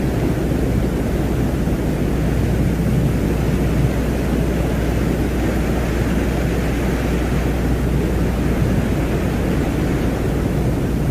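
Steady low rumbling noise with a deep hum underneath: an ambient space-sound drone presented as the sound of the planet Venus.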